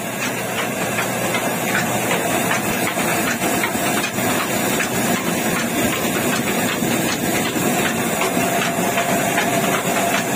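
Village chakki (grain-grinding mill) running, grinding cattle-feed grain fed from its hopper: a loud, steady mechanical din.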